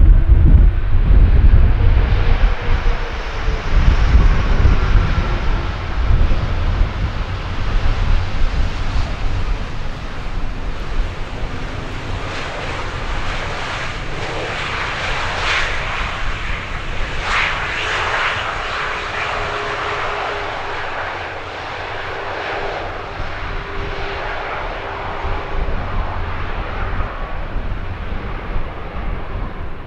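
Jet airliner's engines passing close by and moving away: a loud rumbling roar whose whine drops in pitch as it passes, then a hissing roar that fades gradually.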